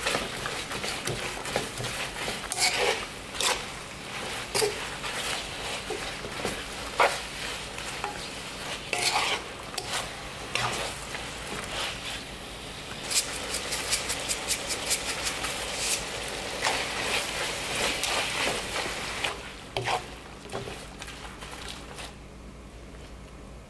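Dried anchovies and shishito peppers sizzling in a stone-coated wok while a wooden spatula stirs them, scraping and knocking against the pan again and again. The sizzle drops away near the end.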